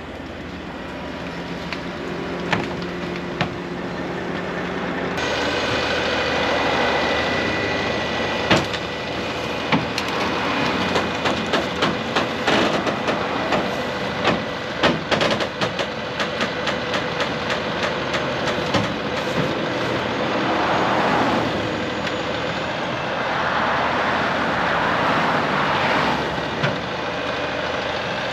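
Heavy diesel truck engine idling steadily, with irregular clicks and knocks through the middle and two longer swells of rushing noise near the end.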